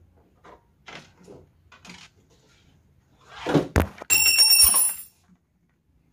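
Metal antenna mounting hardware being handled: a few faint clicks, then a knock about four seconds in followed by a metallic ring that holds for about a second.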